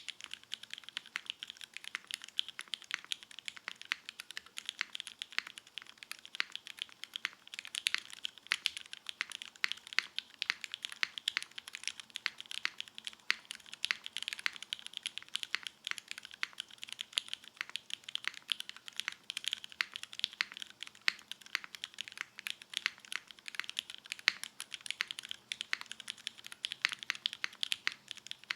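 Continuous typing on a custom mechanical keyboard: a dense, steady stream of keystrokes on lubed vintage Cherry MX Black linear switches in an O-ring-mounted aluminum plate, under GMK keycaps.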